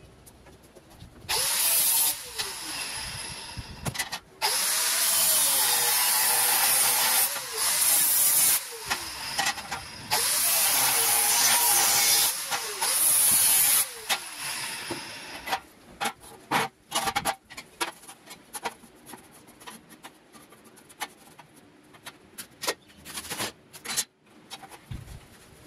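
Handheld angle grinder running on a steel-tube frame in several long bursts, its pitch dipping and recovering as the disc bears on the metal. After about 15 seconds it gives way to a string of short, sharp taps and clicks on metal.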